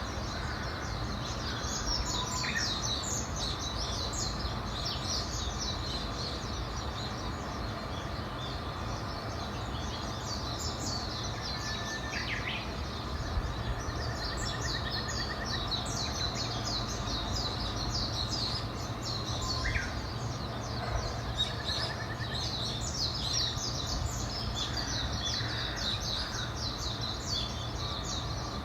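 A chorus of many small birds chirping, coming in waves of dense high, quick chirps, with a few short trills in between. A steady low rumble of background noise runs underneath.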